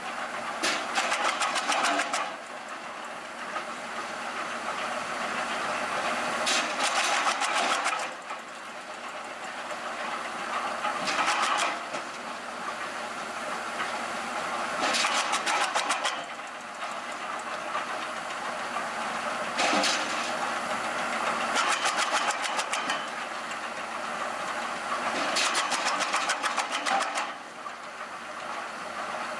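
Tractor PTO-driven drum wood chipper chipping branches: a steady running drone, broken about six times by loud spells of rapid cracking, each lasting one to two seconds, as a branch is pulled in and cut to chips.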